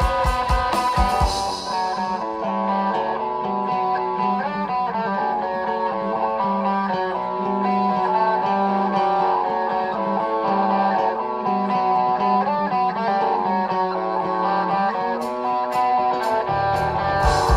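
Live indie rock band playing: the drums drop out about a second and a half in, leaving picked electric guitars over a held bass line. Cymbals come back near the end, and the full drum kit returns just before it closes.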